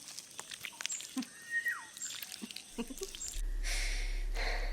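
Faint scattered clicks and taps with one short squeak falling in pitch, then a low steady hum and hiss begins about three and a half seconds in.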